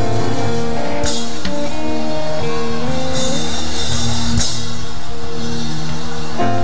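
Live church praise band playing held keyboard chords over drums and bass, with cymbal crashes about a second in and again past the middle.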